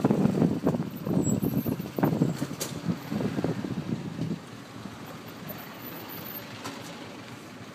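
Motorcycle taxi riding through city traffic, heard from the pillion seat: engine and road noise, loud and uneven at first, dropping about four seconds in to a quieter, steady hum.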